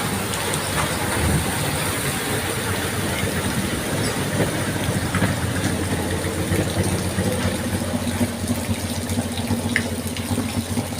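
Heavy rain pouring down in a steady, even hiss, with a faint low hum joining in during the second half.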